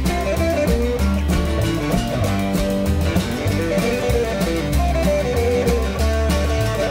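Band music: a hollow-body electric guitar playing a single-note lead melody over a bass line and drums.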